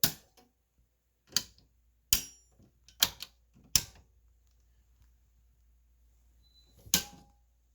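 Circuit breakers in an electrical panel being snapped on and off one after another: a series of sharp clicks, most in the first four seconds and one more near the end, while searching for the well pump's breaker. A faint low hum sets in with the first click.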